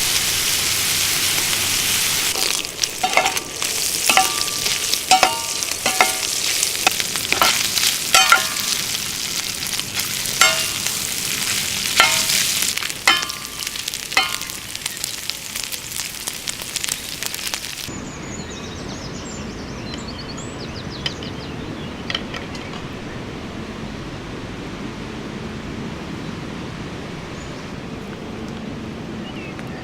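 Beef steaks sizzling loudly over an open fire, with repeated sharp metallic clinks of a utensil against the cookware. About 18 seconds in, the sizzling cuts out to a quieter outdoor background with a few faint bird chirps.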